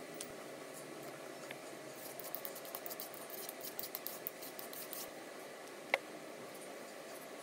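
A vegetable peeler scraping the skin off a long green gourd: a quick run of short, scratchy strokes, followed by a single sharp click near the end.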